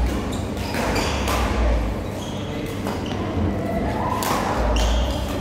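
Badminton rally: rackets strike the shuttlecock in sharp hits roughly a second apart, the loudest near the end from a player close by, with the sound ringing in a large sports hall.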